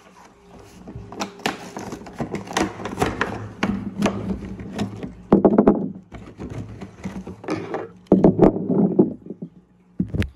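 Hot Wheels monster truck toy packaging being torn open and handled: cardboard and plastic rustling and crackling, with many irregular clicks and knocks as the trucks are worked out of the pack.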